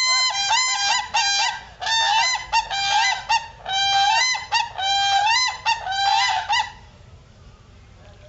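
Crane calling: a rapid series of loud, pitched calls, several a second in short runs, breaking off about seven seconds in.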